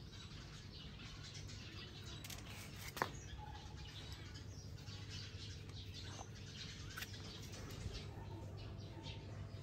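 Birds chirping faintly and repeatedly, with a single sharp click about three seconds in.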